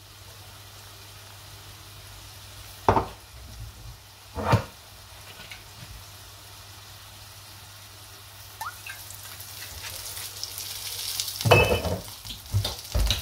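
Flatbread frying in a hot non-stick pan, a steady sizzle, with a couple of knocks a few seconds in. Near the end the sizzle grows louder as olive oil is poured onto the bread, along with a few louder knocks.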